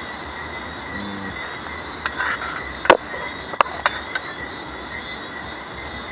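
Steady outdoor chorus of calling animals, an even high-pitched drone, with a handful of sharp clicks and taps about two to four seconds in.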